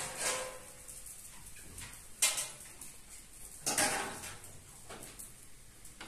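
A few short knocks and clatters of household objects being handled, the ones near the start and about four seconds in followed by a brief ringing.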